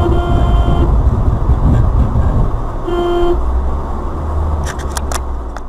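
Car horn sounding twice, a honk of about a second and then a shorter one, over the low rumble of the car driving. A few sharp clicks near the end.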